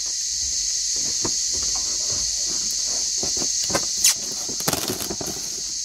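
Steady high-pitched drone of insects, with soft rustling and tapping of a paper-wrapped gasket and its cardboard tube being handled, and a sharp tick about four seconds in.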